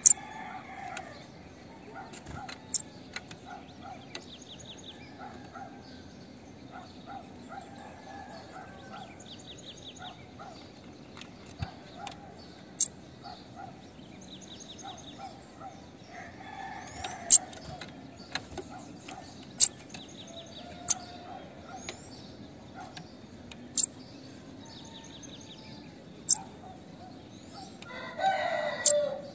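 Female bananaquit calling: sharp, high chip notes every few seconds and thin, rapid high trills. A louder, lower call sounds near the end.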